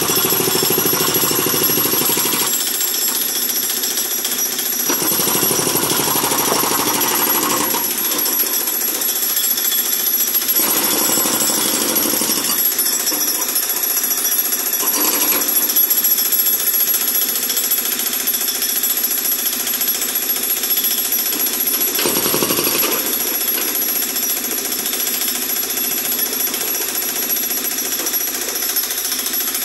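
Hydraulic breaker on a John Deere 50D compact excavator hammering concrete: the chisel pounds rapidly and without a break, with the machine's engine running under it.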